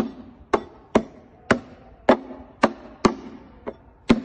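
Hands slapping down on a small tabletop in turns, a steady run of sharp smacks about two a second, with one weaker slap near the end.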